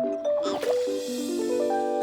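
Cartoon background music: a run of notes climbing step by step, each held so they build into a chord, with a brief swish about half a second in.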